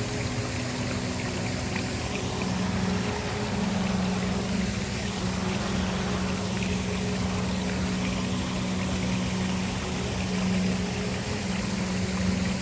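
Waterfall water falling steadily, with a low held drone of ambient background music underneath whose notes shift slightly a couple of times.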